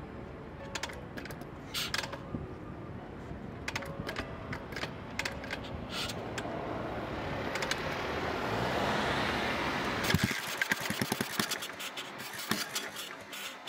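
A car passing on the street, its tyre and engine noise swelling to a peak about two-thirds of the way through and then dropping away. Light irregular metallic clicks and rattles follow near the end.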